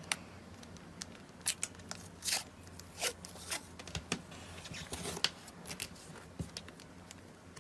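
Slime with rice-grain bits being stretched and pressed by hand, giving soft irregular clicks and pops, a few a second.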